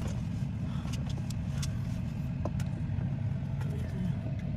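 Steady low rumble throughout, with a few faint clicks and taps of plastic interior trim being handled as a part is turned and worked loose.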